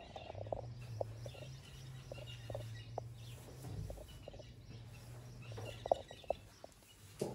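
Outdoor bush ambience: birds chirping over a steady low hum, with a few short clicks, the sharpest about six seconds in.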